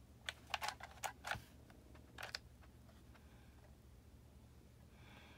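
A small hot glue gun being handled and worked while gluing, giving a handful of sharp clicks and taps in the first two and a half seconds. After that there is only a faint steady low hum.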